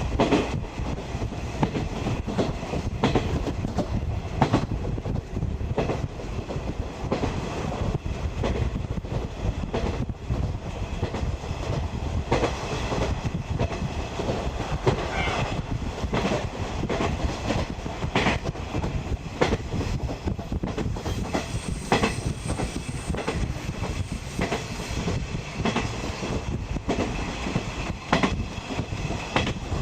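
Running noise of a 50-series passenger coach, heard from inside: a steady rumble of steel wheels on the rails, broken by the clickety-clack of wheels crossing rail joints, with a brief high squeal about halfway through.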